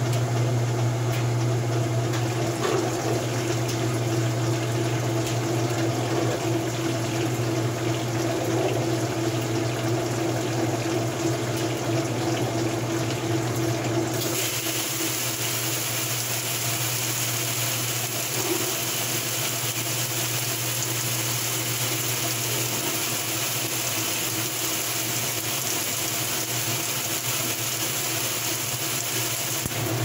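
Old top-load washing machine running empty with a steady motor hum; about halfway through, water starts spraying into the tub with a steady hiss over the hum.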